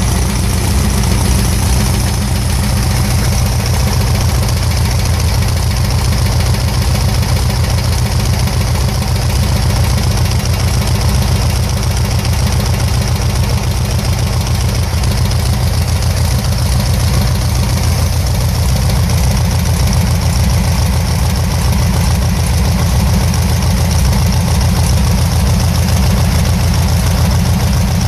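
Volkswagen-type air-cooled flat-four engine, fitted with electronic ignition, idling steadily on a test stand.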